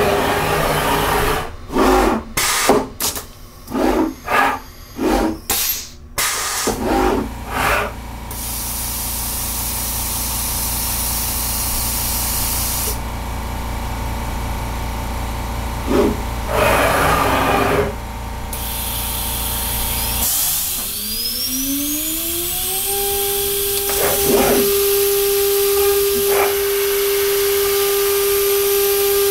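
A run of about ten short hissing bursts, then a steady machine hum that cuts off about two-thirds of the way in. After that the VFD-driven router spindle spins up, its whine rising over a few seconds and then holding a steady pitch at about 24,000 rpm.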